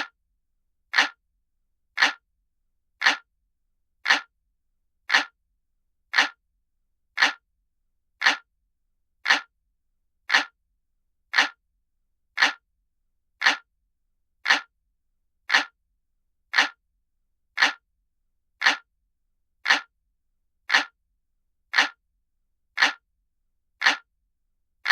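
Ticking of an analog clock, one short sharp tick about every second, evenly spaced with silence between.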